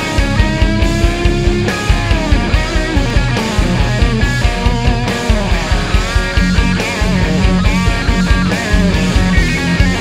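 Electric guitar (Fender Stratocaster) playing a rock lead with string bends, over a backing track with a fast, steady kick-drum beat.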